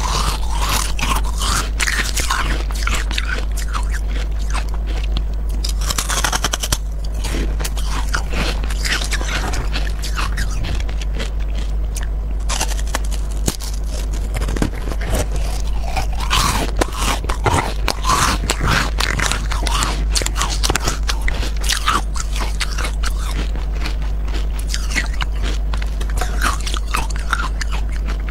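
Carbonated ice, a brittle disc dipped in matcha powder, being bitten and chewed close to a clip-on microphone. It gives a dense run of irregular crunches and crackles throughout.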